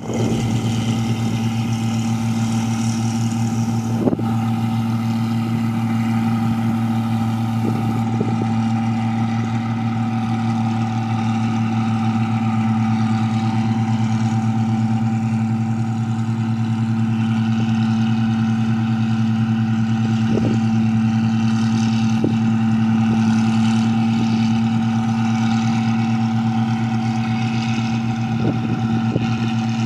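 Engine of a rice-paddy machine running steadily at constant speed, with a few faint knocks now and then.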